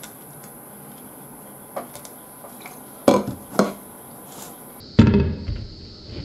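Scattered knocks and clinks of tableware being handled on a table: a glass sauce bottle and a ceramic rice bowl. There is a pair of sharper knocks about three seconds in and a heavier knock about five seconds in.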